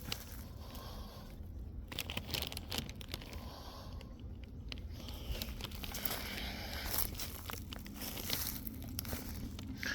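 Scattered light crackling and rustling, small irregular crunches and clicks over a faint steady low hum.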